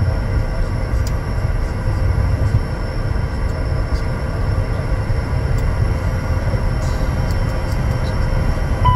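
Bombardier Challenger 350 taxiing on its Honeywell HTF7350 turbofans at idle, heard from inside the aircraft: a steady low rumble with faint steady engine whine tones above it. A short beep sounds near the end.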